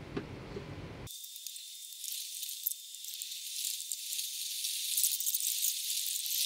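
Tteokbokki in red sauce sizzling and bubbling in a wide pan as it is stirred with a spatula: a thin, high hiss with small crackles. It starts abruptly about a second in and grows louder toward the end.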